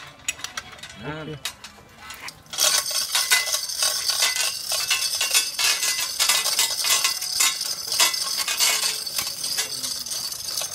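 Dense metallic clicking and rattling, starting about two and a half seconds in and running on, from the lifting chains and rigging of a suspended bronze ship propeller being shifted by hand.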